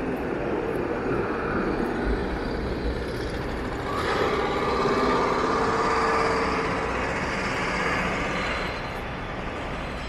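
City street traffic noise with a large vehicle passing. It gets louder about four seconds in and carries a steady whine for a few seconds.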